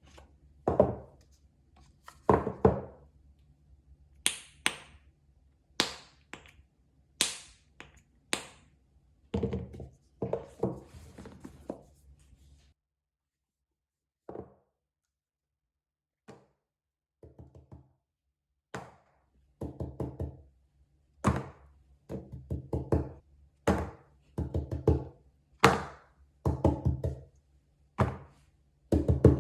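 Fidget toys being handled and set down: a run of irregular taps, knocks and thunks, some with a sharp clicky edge, broken by a brief silence about halfway.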